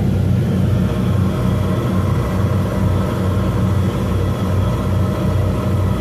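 Ferry's engines running steadily underway: a deep, constant drone over a steady rushing noise.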